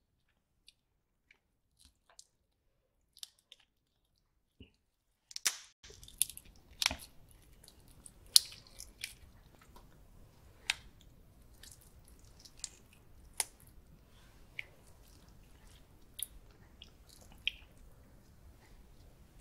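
Close-miked chewing and biting of buttery grilled prawn meat, with sharp wet mouth clicks. Nearly silent with only faint clicks for the first five seconds, then steady chewing with loud, irregular clicks.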